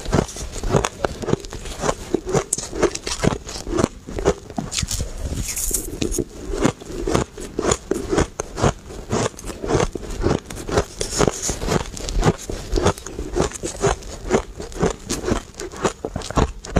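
Blended shaved ice being chewed close to the microphone: a fast, uneven run of sharp crackly crunches, several a second.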